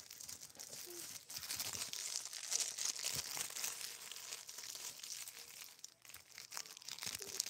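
Crinkling and rustling of a foil Pop-Tart wrapper being handled, irregular and crackly throughout.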